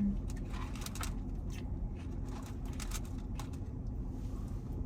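Rustling of fast-food wrappers and the small clicks and mouth sounds of eating a burger and fries, over a steady low hum inside a car.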